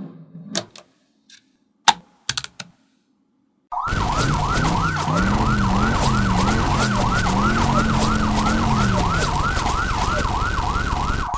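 A few sharp clicks, typical of magnetic balls snapping together. About four seconds in, a police siren sound effect starts: a fast up-and-down wail about three times a second over a lower wavering tone.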